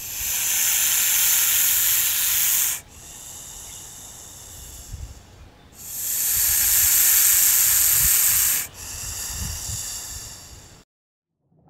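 Snake hissing: two long, loud hisses of about three seconds each, with softer hissing between them.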